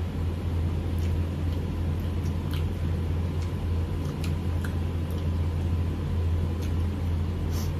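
Steady low hum of room noise, with a few soft scattered clicks and taps of eating from plates by hand.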